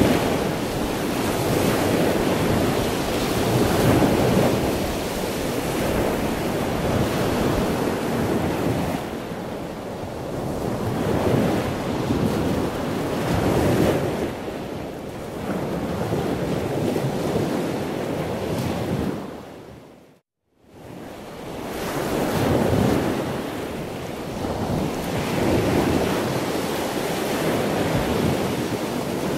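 Sea waves washing in, a steady surf that swells and fades every few seconds. It cuts out abruptly for about half a second around two-thirds through, then resumes.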